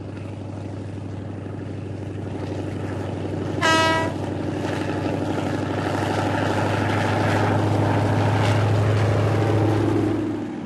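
Passenger train running past: a steady rumble of the coaches on the rails, with one short horn blast about four seconds in. The rumble grows louder, then eases near the end.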